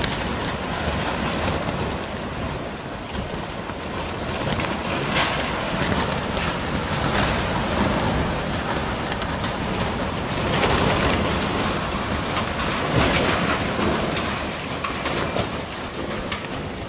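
Storm wind with a continuous clatter and knocking of metal scaffolding, swelling louder several times.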